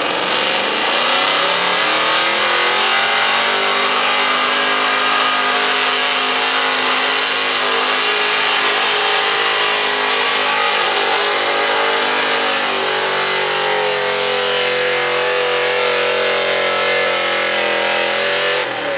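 Late-1970s Ford F-series pickup's engine at full throttle, pulling a weight-transfer sled in a truck pull. The revs climb sharply as the pull starts, hold steady, then rise higher about two-thirds of the way through.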